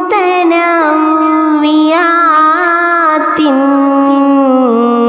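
A woman singing an Arabic patriotic song, drawing out ornamented notes that glide between pitches. She steps down about three and a half seconds in, then settles on a long held lower note near the end.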